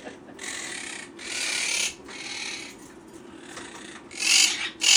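Harsh, rasping parrot squawks, several in a row, the loudest about a second in and near the end, over a steady low hum.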